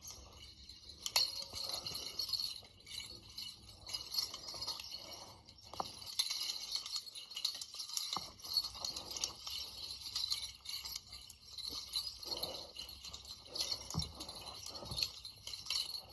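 Shallow creek water flowing over stones: a steady hiss with many small clicks and splashes.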